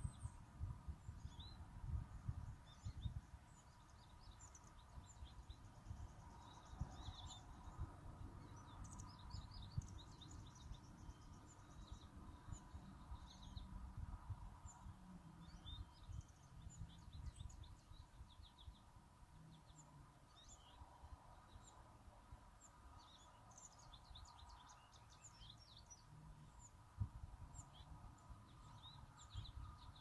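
Faint, scattered chirps and calls of several songbirds, over a steady low rumble and a faint hum.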